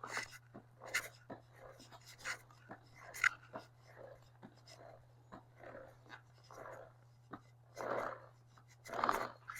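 Scrubbing of a 2005 Yamaha R6's dirty drive chain during cleaning: short, irregular scratchy strokes about once a second, a few louder ones near the end.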